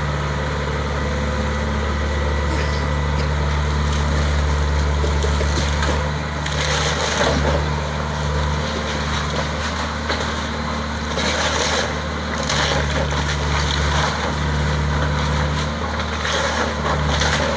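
John Deere hydraulic excavator's diesel engine running steadily under load as its bucket tears into a house's upper floor and roof. Wood cracks and debris crashes down in several bursts: a few seconds in, around the middle, and near the end.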